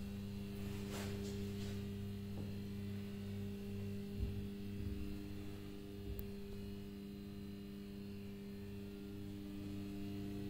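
Electric machinery of a 1941 Carl Flohr freight-elevator winch giving a steady mains hum made of several even tones. A few faint clicks come in the first two seconds, and a single knock about four seconds in.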